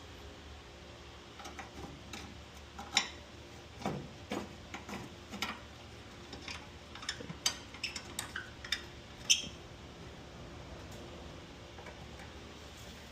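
Scattered metallic clicks and clinks of hand tools and bolts being worked while the engine cover is refitted, irregular and sharp, with the loudest clinks about three seconds in and near nine seconds.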